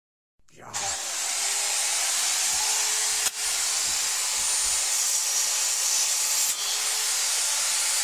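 Handheld electric circular saw running at full speed with a steady high whine, its blade cutting through a mobile phone and into the wooden board beneath. The saw starts up just under a second in and briefly dips twice as the blade bites.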